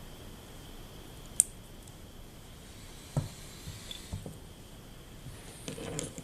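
Small metal parts of a Sachs Spectro 7-speed internal-gear hub being handled and fitted: one sharp click about a second and a half in, a few soft knocks around the middle, and light clinking near the end.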